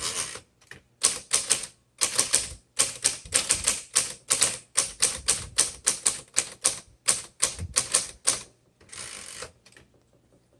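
1957 Royal Quiet Deluxe manual typewriter being typed on: a fast, uneven run of sharp key strikes, with a brief rasping sound near the end.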